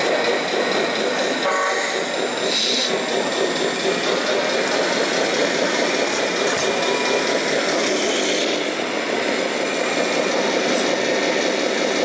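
Radio-controlled hydraulic excavator working, its pump giving a steady whirring run with a faint high whine as the arm digs gravel and swings to load a tipper truck.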